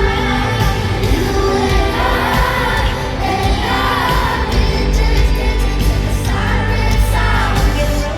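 Pop song performed live in an arena: sung vocal melody over a heavy, bass-driven backing, with long held notes.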